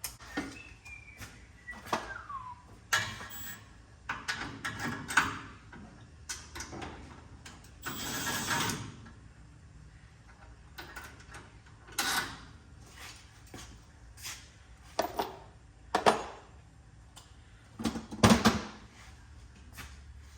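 Scattered knocks, clicks and clanks of hand tools and metal parts being handled, with a short hiss about eight seconds in.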